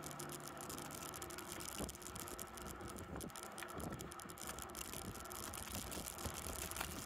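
Faint riding noise of a bicycle on rough asphalt: a steady hiss of tyres and wind with scattered light rattles and clicks from the bike. A music track fades out in the first second.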